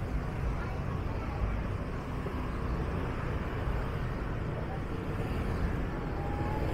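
Street traffic: vehicles running and passing, a steady low rumble.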